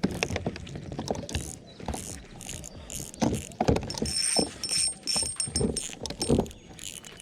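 Irregular knocks, taps and clatter of handling on a fishing kayak while a just-landed smallmouth bass is being dealt with, with a faint high steady whine for a couple of seconds midway.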